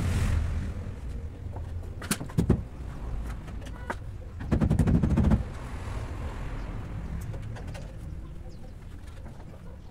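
A few sharp clicks and knocks, then a short rattling patch about halfway through, over a low background rumble: hand work at the window opening of a steel truck cab.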